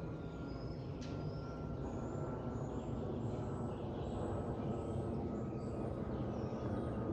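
Boeing 737 MAX 8 jet airliner climbing out overhead after takeoff, its CFM LEAP-1B engines giving a steady low roar that slowly grows louder, with a faint high tone sliding slowly down. Birds chirp over it.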